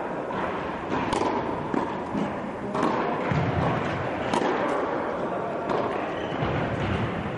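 Tennis ball struck with a racket again and again during a rally: sharp hits about every one and a half seconds, with duller thuds between them.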